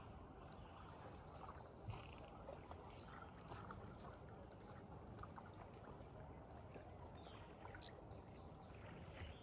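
Near silence: faint outdoor ambience, a low even hiss with a few faint high chirps about seven seconds in.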